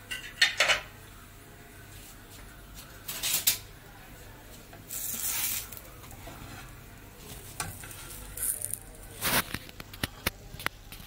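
A slotted spatula and a fork scraping and knocking against a flat griddle pan as a toasted sandwich is slid, lifted and stacked. The sounds come as short scrapes and taps, with a longer hissing scrape about five seconds in and a quick run of small clicks near the end.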